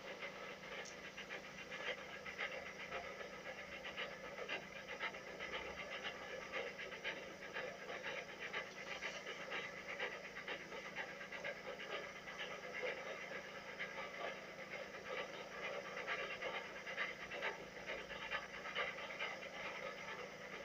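Steam locomotive working a train, heard from the carriages behind: a continuous quick rhythm of exhaust chuffs over a steady hiss.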